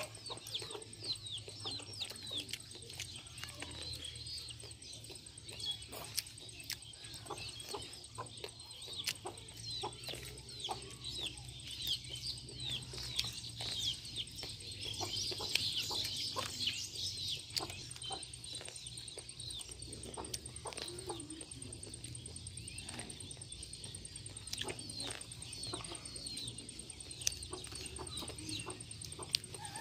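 Many small birds chirping in quick, short, falling calls, busiest around the middle, with scattered clicks and crunches of boiled corn on the cob being bitten and chewed close to the microphone.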